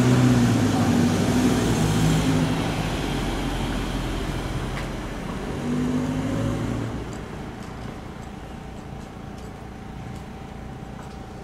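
A substitute bus's engine pulling away, its note stepping through the gears in the first seven seconds, then fading as the bus drives off.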